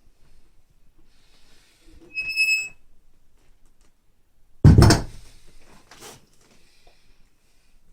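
Weight plates on a Rolling Thunder grip handle: a short ringing metallic clink about two seconds in, then a heavy thud about halfway through as the loaded handle comes down on the floor, and a lighter knock after it.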